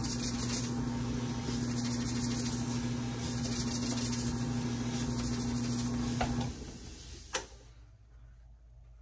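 Bowling ball spinner's motor running with a steady hum while the ball is sanded with a 360 sanding pad. The motor stops about six and a half seconds in, the noise fades, and a single click follows about a second later.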